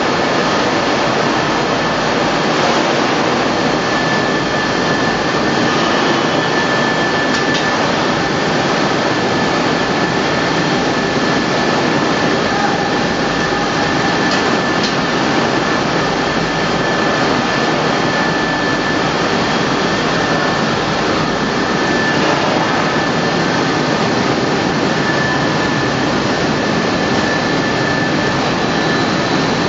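Welding-wire no-twist coiling machine running steadily, a loud even mechanical noise with a constant high whine and a few faint clicks.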